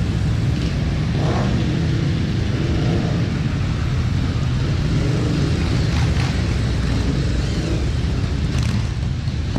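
A column of motorcycles, cruisers and a sidecar outfit among them, riding slowly past one after another; their engines make a steady, low-pitched sound that runs on without a break.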